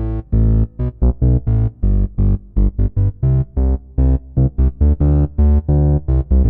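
MES Mini 11 software synthesizer playing a fast pattern of short, clipped notes, about four or five a second, with a heavy low end.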